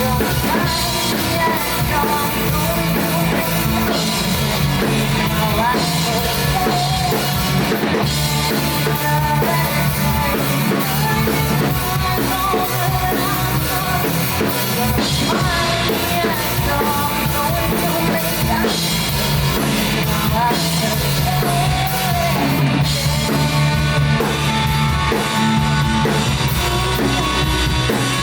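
Band-backed rock-style music with drum kit and a singing voice.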